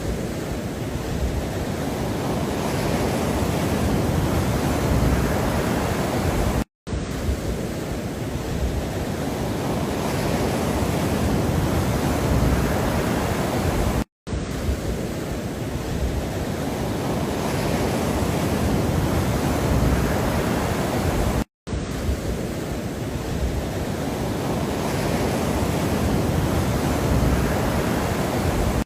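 Steady rushing noise of a looped relaxation sound track, heaviest in the low range. It swells gradually, then cuts out for an instant about every seven seconds as the loop restarts.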